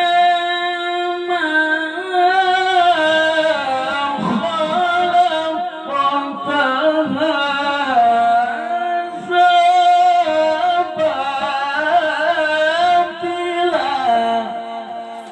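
A man's voice reciting the Quran in melodic tilawah style, drawing out long, ornamented held notes with only short breaks for breath.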